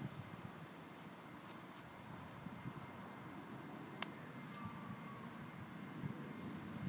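Faint handling rustle of a hand-held KCB-300 soil meter, with a single sharp click about four seconds in as its button is pressed to switch the reading from temperature to pH. Faint, short, high chirps from birds come now and then.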